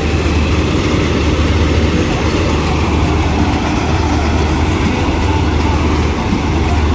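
Combine harvester's diesel engine and machinery running steadily, a constant low drone.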